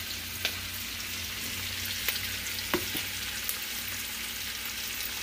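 Chopped onions frying in hot oil in a pot: a steady sizzle with a few sharp crackles scattered through it.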